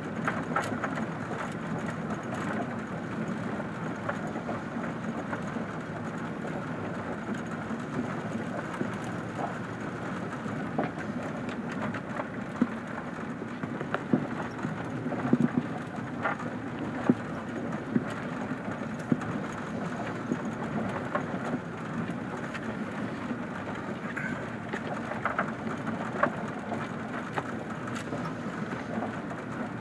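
Vehicle driving on a gravel and dirt road, heard from inside the cab: a steady rumble of engine and tyres on the loose surface, with scattered knocks and pings from stones and bumps, most of them in the middle stretch.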